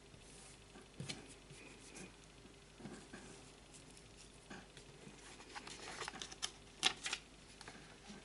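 Faint rustling, scratching and small clicks of fingers handling and pinching crocheted yarn petals, with a sharper click about seven seconds in.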